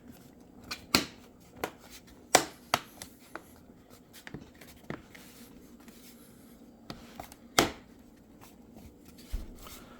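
Plastic bottom cover of an HP Pavilion x360 laptop being handled and pressed back onto the chassis, with a scatter of sharp clicks and knocks as its edges snap into place.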